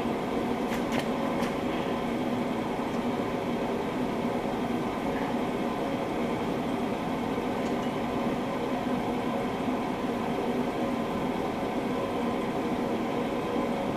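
Steady mechanical hum, like a fan or other running machine, with a few faint light clicks about a second in.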